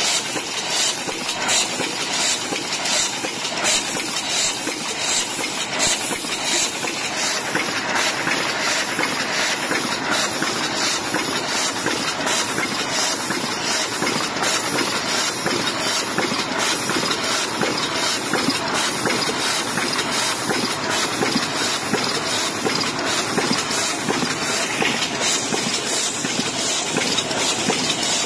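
DEBAO-1250CC high-speed paper cup machine running at speed: a continuous fast, rhythmic mechanical clatter over a steady hiss.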